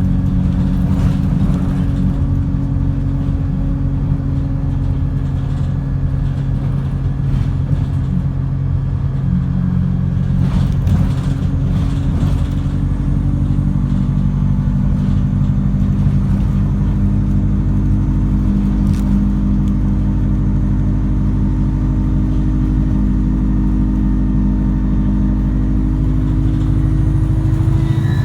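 Alexander Dennis Enviro 200 single-deck bus engine running with a steady, droning set of low tones, one of which slowly rises in pitch over the second half. It is an odd, dodgy-sounding engine noise that this bus model does not normally make.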